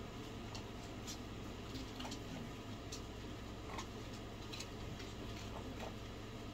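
Faint, irregular small clicks and taps, roughly one a second, over a steady low hum.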